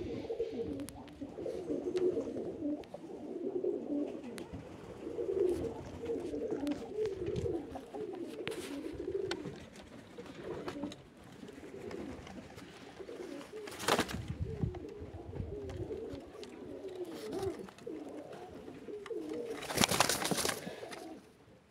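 Several Zamość pigeons cooing together in a loft, their calls overlapping continuously. Two short rustling bursts cut across the cooing, about 14 and 20 seconds in; the second is the loudest sound.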